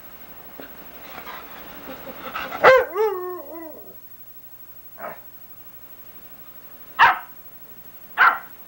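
Dogs barking while a puppy and an older dog play: a sharp bark with a falling yelp trailing after it about three seconds in, a short fainter bark about two seconds later, then two sharp barks near the end.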